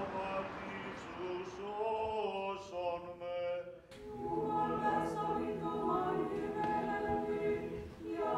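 Orthodox church choir singing a cappella in long held notes, with an abrupt change about four seconds in to a fuller passage with more voices.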